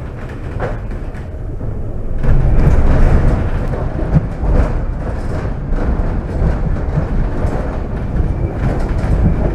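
Cog-wheel railway car running along the rack rail, heard from inside the car: a loud, steady rumble with rapid clicks and knocks from the running gear. It grows louder about two seconds in.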